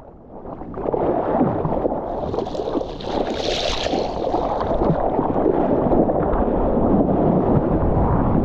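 Ocean water rushing and splashing around a surfer's waterproof-housed camera, with wind on the microphone. It starts muffled and swells louder within the first second, with a brighter hiss of spray a couple of seconds in.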